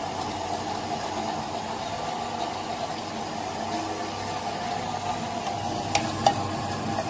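Steady mechanical hum from a running kitchen appliance, with two sharp metallic clinks about six seconds in as the empty tomato tins are handled.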